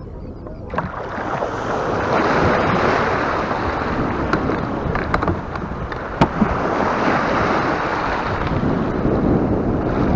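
Small surf breaking and washing around a kayak in the shallows at a sandy beach, with wind buffeting the microphone. The noise rises sharply about a second in, and a few sharp knocks come through the wash, the loudest about six seconds in.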